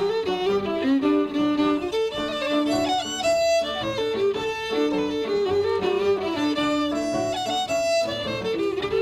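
Music: a fiddle playing a tune in quick, running notes, in the style of Irish traditional music.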